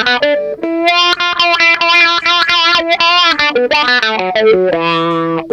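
Electric guitar played through a Dunlop Cry Baby GCB95 wah pedal: a run of notes, some held about a second, with the tone sweeping brighter and darker.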